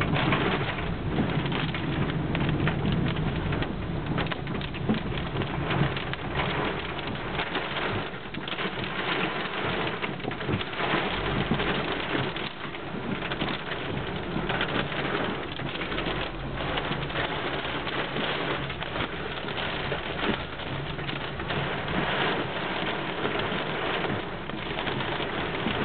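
Torrential rain beating on a moving car's windshield and body, heard from inside the cabin: a dense, steady downpour that surges and eases in gusts.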